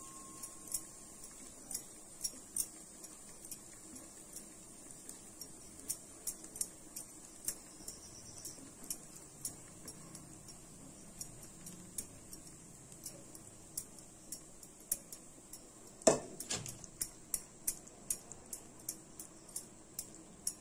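Spatula scraping and tapping against a pan and steel plate as thick halwa is pushed out and spread: a run of light, irregular clicks and ticks, with one louder knock about 16 seconds in.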